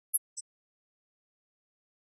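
Silent audio track, broken by two very short high-pitched blips within the first half-second.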